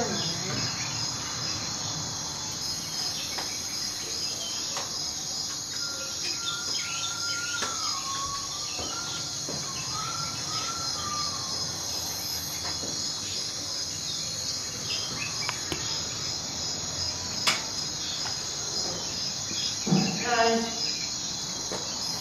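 Steady high-pitched insect chirping, like crickets, pulsing evenly a few times a second. A wavering whistle rises and falls for a few seconds in the middle, and a short voice sounds near the end.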